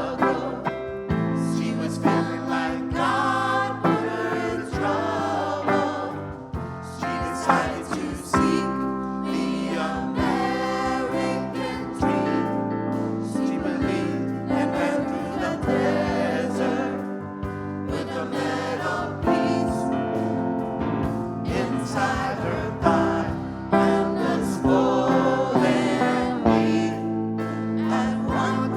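Gospel choir singing with instrumental accompaniment, voices holding sustained chords over a steady bass.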